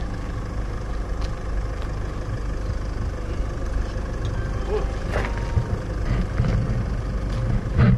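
A car engine idling steadily, its low rumble growing stronger in the last two seconds, with a few faint clicks.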